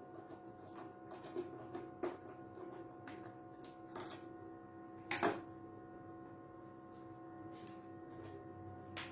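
Scattered light clicks and knocks, the loudest a double knock about five seconds in, over a steady mix of held tones.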